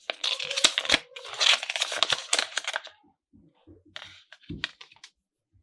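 Toy packaging being torn open and crinkled by hand for about three seconds, followed by a few light clicks and taps.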